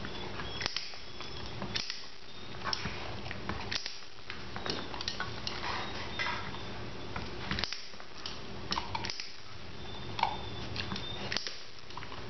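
Light, irregular clicks and clinks from a border collie puppy stepping and shifting about on a rug and wood floor.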